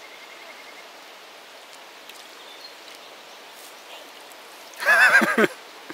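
Shallow river running steadily over rocks, with a hand splashing lightly in the water. About five seconds in, a short, loud, wavering cry cuts in for about half a second and falls in pitch at its end.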